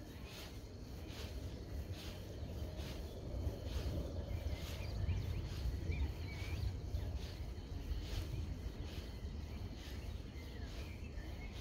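Baitcasting reel cranked during a jerkbait retrieve, with soft ticks about twice a second over a steady low rumble. Birds chirp faintly in the background.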